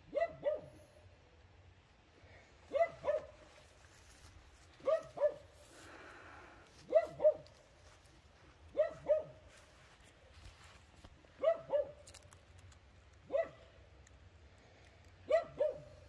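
A dog barking steadily in pairs, two quick barks about every two seconds.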